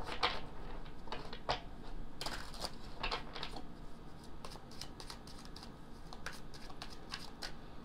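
A deck of tarot cards being shuffled by hand: an irregular patter of quick, soft card clicks and flicks.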